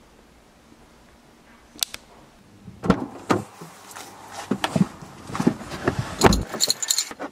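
A person climbing into a car's driver's seat, with the door and seat sounding: a run of thumps, clicks and rustles from about three seconds in, after a quiet start with two sharp clicks.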